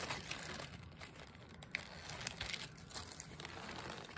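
Plastic zip-top bags crinkling and rustling as hands dig through them, with irregular small clicks and crackles.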